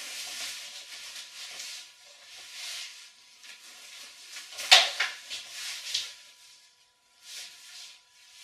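Rope being handled and pulled loose, in bursts of rustling, with a sharp knock about halfway through and two smaller knocks after it.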